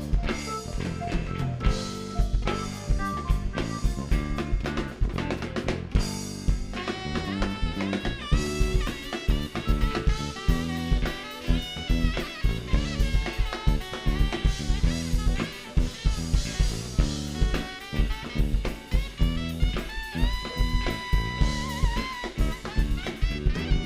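Rock band playing an instrumental break live: a drum kit keeping a steady beat on snare and bass drum under bass and a melodic lead line, which holds a few long, wavering notes near the end.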